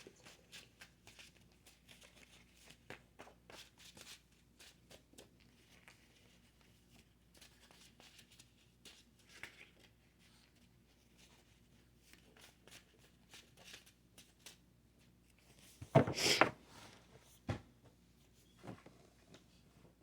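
Tarot cards being shuffled and handled: a faint run of light card clicks and flicks, then a louder rustle about sixteen seconds in and a couple of sharp knocks near the end.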